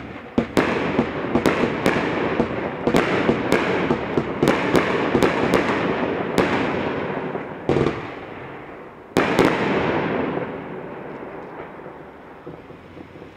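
A 25-shot 500g consumer firework cake firing shot after shot, with sharp reports about two a second over a steady crackle. After a short pause, two last shots go off around eight and nine seconds in, and the crackle fades away.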